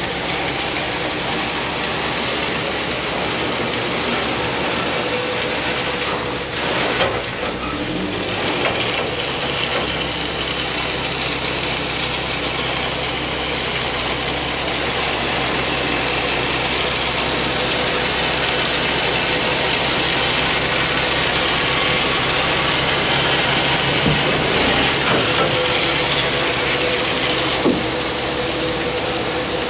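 Ford L9000 dump truck's diesel engine running steadily with a broad hiss over it, as the truck backs along while tailgate-spreading gravel. A few short knocks come about seven seconds in, and a sharp click comes near the end.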